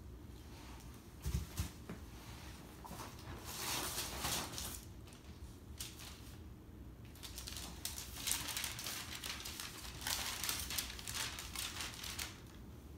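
Paper and plastic packaging rustling and crinkling in bursts as a gift is unwrapped and handled, with a thump about a second in.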